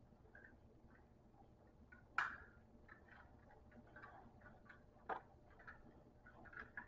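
Faint clicks and taps of small toys being handled, with two sharper knocks, about two seconds in and about five seconds in.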